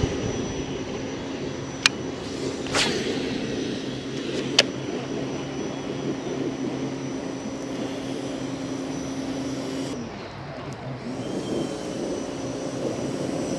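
A steady, distant engine drone, an even hum that cuts off about ten seconds in. A few sharp clicks come in the first five seconds.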